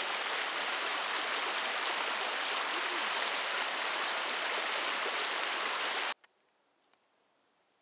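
Mountain creek running over rocks, a steady rushing of water that cuts off abruptly about six seconds in, leaving near silence.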